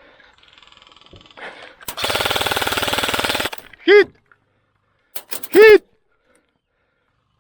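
Airsoft gun firing one rapid full-auto burst of about a second and a half, evenly spaced shots. It is followed by two short, loud pitched cries that rise and fall in pitch, about two seconds apart.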